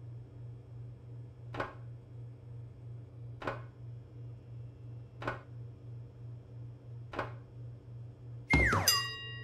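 Cartoon sound effects of cupcakes being lifted from a baking tray onto a cooling rack: a soft tap about every two seconds over a low steady hum. Near the end comes a louder sound that falls in pitch, followed by several ringing tones, like a chime.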